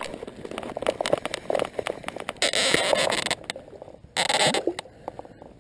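Fly reel and line handling while a hooked sea trout is played close in: irregular clicking and rustling. A louder rush of noise lasting about a second comes two and a half seconds in, and a shorter one comes near the end.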